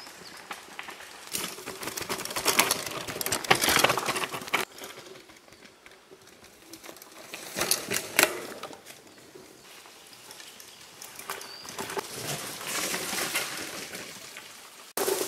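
Mountain bike passing on a dirt and stone trail: knobby tyres crunching over gravel and the bike brushing through trailside plants. It comes in several passes, with quieter stretches between, and cuts off suddenly near the end.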